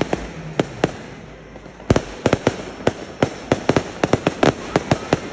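Fireworks going off: a few scattered sharp bangs, a short lull, then rapid bangs resume about two seconds in, several a second.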